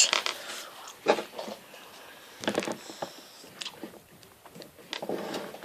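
Plastic Lego Technic parts clicking and knocking as they are handled, a few separate clicks with a short cluster about halfway through.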